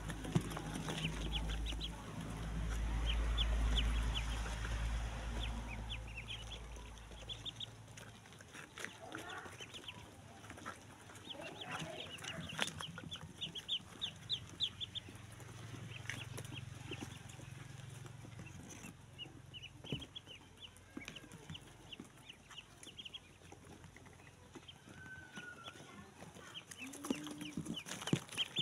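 A crowd of ducklings peeping, with many short high chirps coming in clusters. A low rumble sits under the first seven seconds or so and is loudest around four seconds in.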